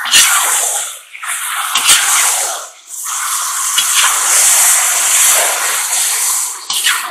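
Chicken, onion and carrot sizzling loudly in hot oil in a kazan as they are stirred with a slotted spoon; the sizzle swells and dips in waves as the food is turned, with a couple of short knocks of the spoon against the pot.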